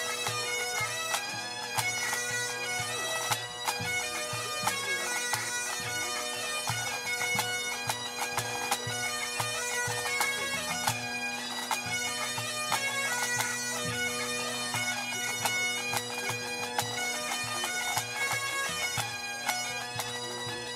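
Grade 2 pipe band playing a medley: Great Highland bagpipes, with the drones held steady under a fast-moving chanter melody and drum strokes beating through it.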